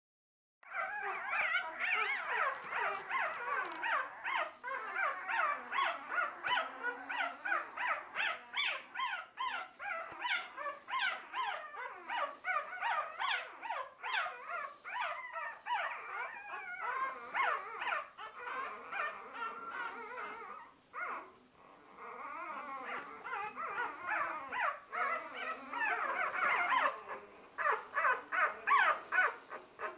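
Newborn puppies, five to fifteen days old, crying and whimpering in rapid, overlapping high-pitched squeaks. There is a brief lull about two-thirds of the way through, and the calls come more separately near the end.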